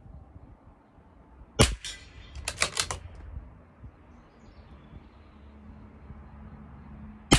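Two shots from a CZ 457 LRP .22 LR bolt-action rifle firing SK Rifle Match rounds, one about a second and a half in and one near the end. About a second after the first shot the bolt is worked, a quick run of sharp metallic clicks.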